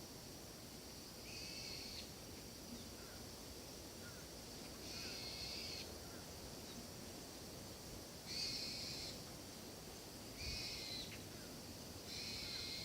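An animal calling outdoors: five short, high calls a few seconds apart over a faint steady background hiss.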